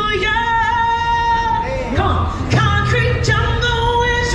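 A woman singing long held notes into a microphone, amplified, with a low steady sound from the band underneath.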